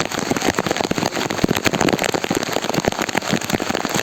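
Heavy rain, with big drops striking a hard surface close by in a dense, steady crackle of sharp clicks.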